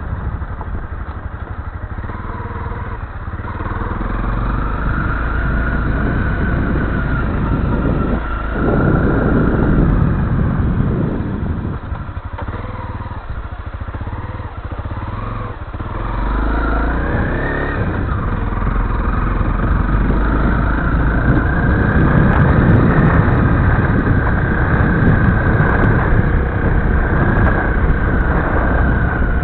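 Honda CRF250L's single-cylinder four-stroke engine running under way, its pitch climbing about four seconds in and again just past the middle as the rider opens the throttle, over a steady low rumble.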